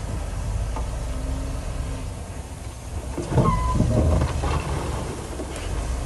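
Heavy diesel earthmoving machinery running with a steady low rumble. A little past the middle comes a louder burst of metal clanks with a brief squeal.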